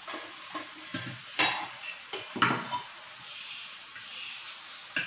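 Metal ladle stirring thin batter in a steel bowl, scraping and knocking against the bowl's sides a few times.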